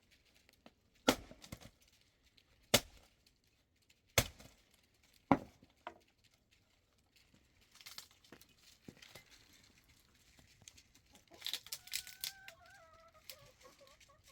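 Four sharp knocks in the first half, each a second or more apart, then near the end a drawn-out animal call falling in pitch.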